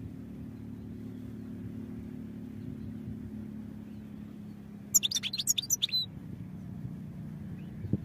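European goldfinch giving a short burst of rapid, twittering song notes about five seconds in, lasting about a second, over a steady low hum.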